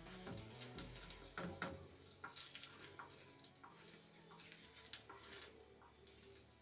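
Light, irregular taps and scrapes of a silicone spatula against a nonstick frying pan as an omelette is pushed and rolled, with a sharper click about five seconds in.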